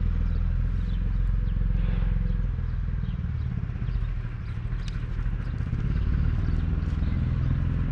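Tractor engine running steadily with a loud low throb, easing slightly about halfway through before picking up again, with a few light clicks over it.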